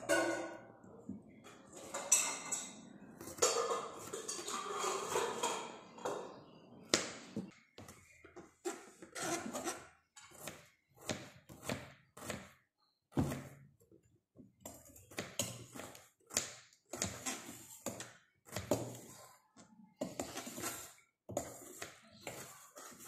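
Kitchen knife slicing red onion on a plastic cutting board: a regular series of short knocks, roughly one or two a second, from about a third of the way in. It is preceded by a few seconds of metallic clatter from a steel bowl.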